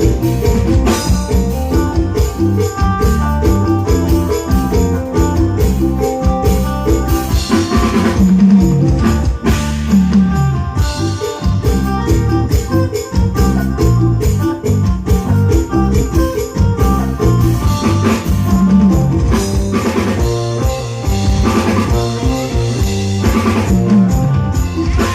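Loud music with a steady beat: drum kit and tambourine over pitched instruments, with no break.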